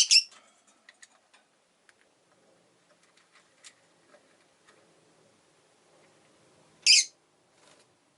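Rosy-faced lovebirds calling: a quick pair of short, high-pitched chirps at the start and another loud chirp about seven seconds in, with faint scattered clicks and taps in between.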